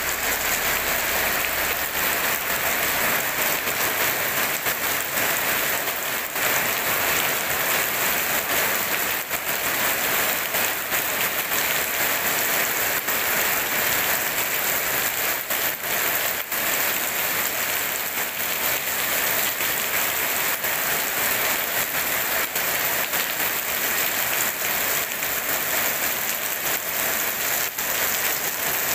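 Heavy rain falling steadily on wet paving and puddles: a dense, even hiss full of fine spattering ticks, with no thunder.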